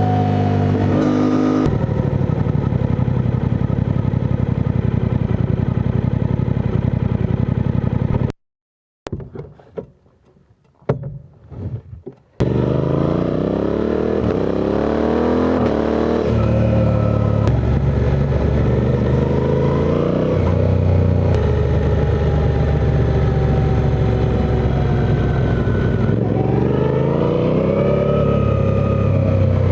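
Suzuki V-Strom 800DE's parallel-twin engine under way, its pitch rising and falling as the rider accelerates and shifts. About eight seconds in, the sound cuts out for roughly four seconds, then the engine returns and climbs again twice.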